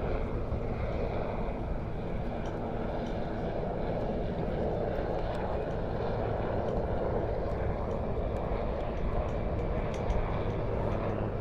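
Marine One helicopter flying a go-around orbit after a wave-off, a steady drone of engines and rotor with low humming tones.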